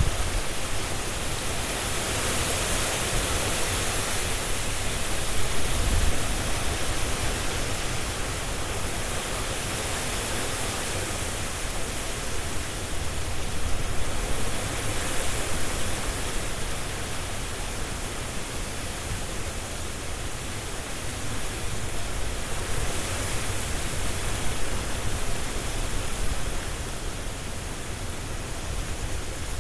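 Strong wind rushing through trees, a dense steady hiss of air and shaking leaves that swells in gusts every several seconds.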